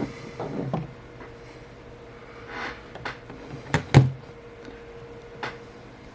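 A few sharp clicks and taps from handling an opened iPhone 8 and its screen on the work surface, the loudest two close together about four seconds in, over a faint steady hum.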